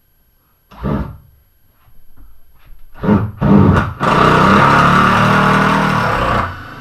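A handheld power tool worked against a stubborn screw: a short trigger burst about a second in, a few brief bursts around three seconds, then a loud steady run of about two and a half seconds that stops near the end.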